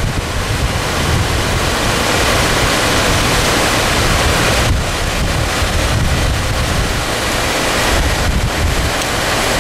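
Muddy floodwater rushing and churning through an excavated channel, a loud, steady rush, with wind buffeting the microphone underneath.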